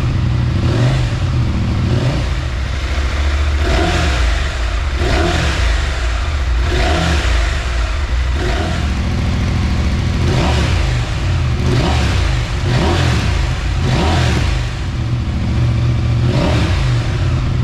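Husqvarna Norden 901's parallel-twin engine idling through an aftermarket slip-on exhaust, the throttle blipped again and again, about one short rev every second or two.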